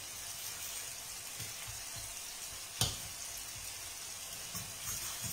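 Chopped eggplant pulp sizzling steadily in a frying pan, with one sharp click a little past the middle.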